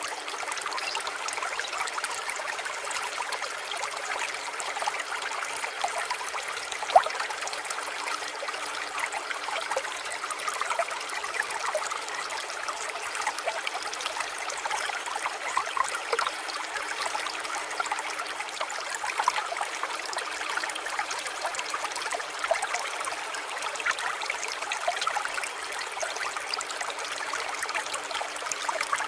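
Small stream of water trickling and bubbling steadily, with a faint steady low tone underneath and a single sharp click about seven seconds in.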